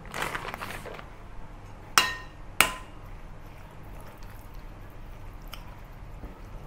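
Metal spoon stirring a minced pork and shrimp stuffing in a glass mixing bowl: a short rustling scrape at the start, then two sharp ringing clinks of metal against glass about half a second apart, then soft scraping.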